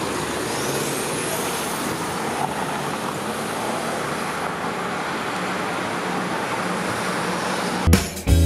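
A car driving, heard as a steady rush of road and wind noise, with a faint rising whistle in the first two seconds. Music cuts in near the end.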